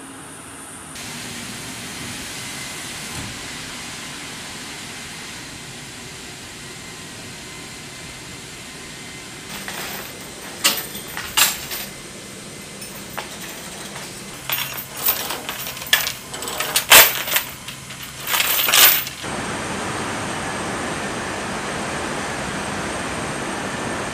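Steel tie-down chains clinking and clanking as a vehicle is chained to an aircraft's cargo floor: a run of sharp metal clinks and rattles over about ten seconds in the middle, between stretches of steady rushing engine noise.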